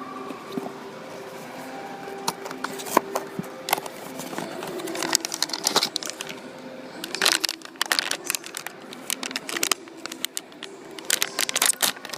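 Cardboard blind-box packaging and the foil wrapper inside being handled and torn open, crinkling and crackling in several bursts, heaviest about halfway through and near the end.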